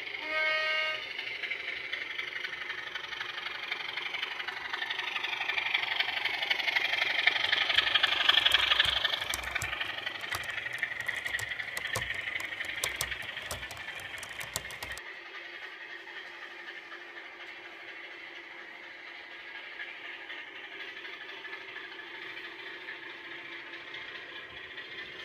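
Model Class 27 diesel locomotive's DCC sound decoder playing its Sulzer engine sound through the model's small speaker: a short horn note at the start, then the engine revving up, with a run of sharp clicks, before it cuts back suddenly about fifteen seconds in to a quieter steady idle.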